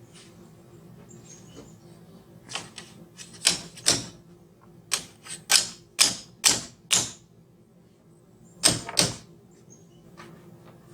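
Hammer tapping on wood: about a dozen sharp knocks, a quick run of six in the middle and a final pair near the end.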